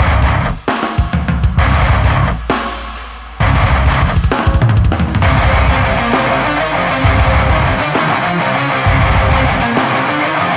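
Heavy metal with drum kit and distorted guitar, played through Audeze headphones and recorded binaurally. It opens with stop-start hits that ring out, then the full band plays steadily from about three seconds in.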